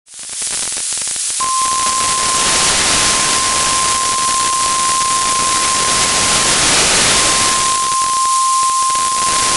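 Weather radio hissing with loud static while a steady single-pitch alarm tone near 1 kHz sounds from about a second and a half in, dropping out briefly near seven seconds. This is the weather radio warning alarm tone that precedes a broadcast tornado warning.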